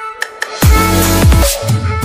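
Background electronic dance music: a short break with a couple of clicks, then the beat comes back in about half a second in with deep bass notes that drop in pitch.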